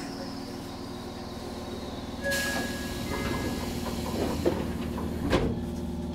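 Shin-Keisei electric train standing at a platform, its equipment humming steadily. About two seconds in comes a burst of hiss with a brief thin tone, and near the end two sharp knocks.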